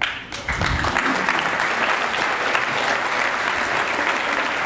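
Audience applause that breaks out suddenly and holds steady.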